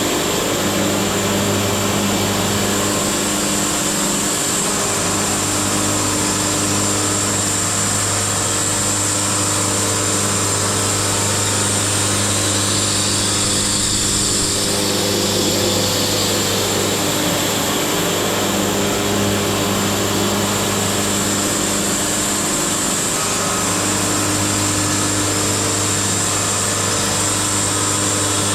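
Wood-Mizer LT70 band sawmill running steadily: a constant motor hum under the high hiss of the band blade, with the hiss changing for a few seconds around halfway through.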